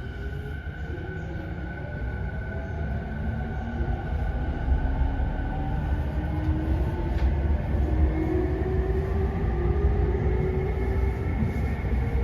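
JR 209 series 500 electric train accelerating from a stop: its motor whine climbs steadily in pitch over the rumble of the wheels on the rails, growing louder as it picks up speed.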